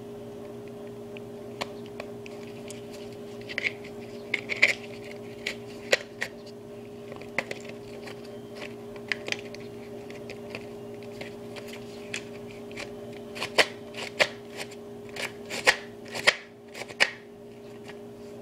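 Cardboard replica Glock 17 being worked by hand: its slide and slide stop give scattered light clicks, taps and papery rustles, in bunches about four to six seconds in and again near the end. A steady low hum runs beneath.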